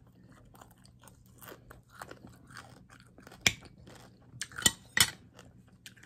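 Close-up mouth sounds of someone chewing food, with wet crunching and small crackles, and three sharper clicks a little past halfway.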